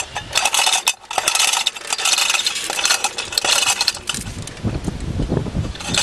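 Hand chain of a small chain hoist rattling and clinking in quick pulls as it lowers the bulldozer's heavy clutch pressure plate, then a few duller clunks.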